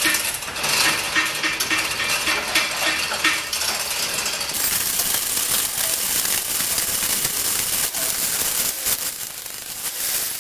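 Manual chain hoist worked by hand to lower a small car: the hand chain clinks and rattles through its wheel in quick metallic clicks. A steady hiss comes in about halfway.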